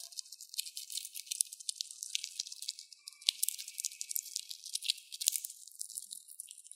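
Dwarf hamster husking black sunflower seeds with its teeth: rapid, irregular crisp clicks and crackles of the shells being gnawed and split.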